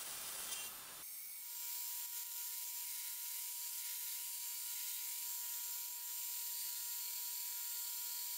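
Milling machine end mill cutting a slot in a steel guard, then, about a second in, a belt grinder running with a steady motor whine and a high hiss as a small steel piece is ground against the flat platen.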